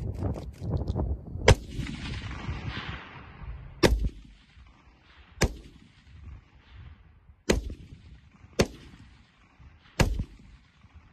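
Rifle fired from the prone position: six deliberate single shots spaced about one to two seconds apart, each trailing off in echo.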